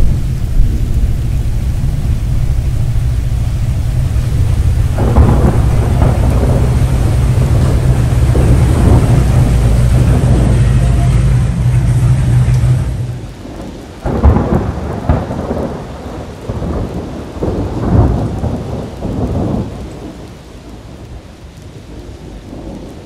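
Large touring motorcycle's engine idling, a steady low rumble that stops abruptly about 13 seconds in. It is followed by a series of irregular louder bursts of noise that fade toward the end.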